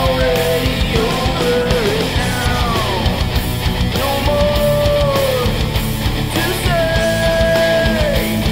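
Modern hard rock music: heavy distorted guitars and drums under a lead melody of long held notes that bend and slide in pitch.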